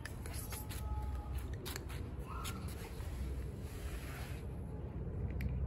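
Cat crunching dry kibble: a string of sharp, uneven crunching clicks over a low steady rumble.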